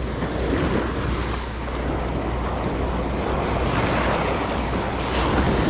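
Surf washing up on the beach, with wind rumbling on the microphone.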